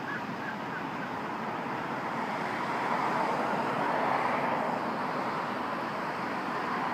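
Steady rushing road-traffic noise that swells a little in the middle, as of vehicles going by.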